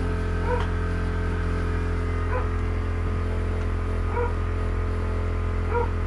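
A dog whimpering in four short, high squeaks, roughly every two seconds, over a steady low electrical hum.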